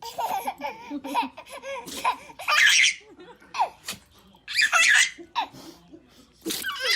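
A baby laughing: a run of high, wavering giggles, then several short, breathy bursts of laughter.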